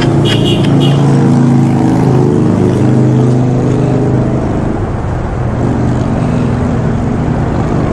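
Kawasaki Dominar 400's single-cylinder engine idling steadily. A brief high-pitched beep sounds about half a second in.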